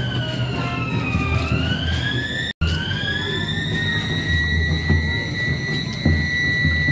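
Vehicle siren sounding a high steady tone that slides down in pitch and back up, over a low rumble. The sound drops out for an instant about two and a half seconds in.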